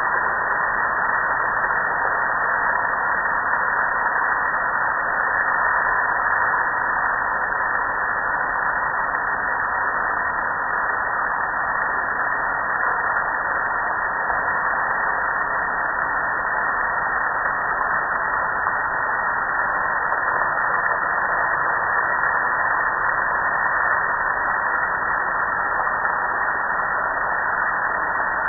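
Steady rush of water pouring onto a soapy gas grill and streaming down its lid and front panel.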